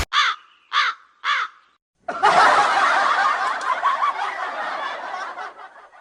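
Three short calls about half a second apart, then a group of people laughing together, fading out near the end.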